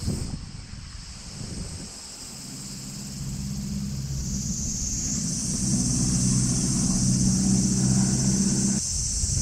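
A low engine hum that swells steadily from about two seconds in and cuts off abruptly near the end. A steady high insect drone runs underneath.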